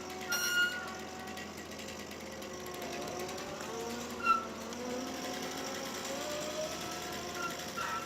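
Tree-cutting machine working: engine and hydraulics running with a whine that wanders up and down in pitch, and one sharp crack about four seconds in.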